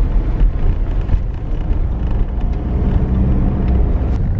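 Car driving along: a steady low engine drone with road rumble and small rattles and knocks.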